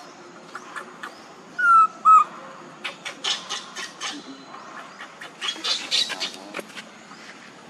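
A baby monkey gives two short, loud cries that fall in pitch, about two seconds in, while rolling and kicking on its back in dry leaves. Crackling rustles of the leaves come and go around the cries, thickest in the middle and again near the end.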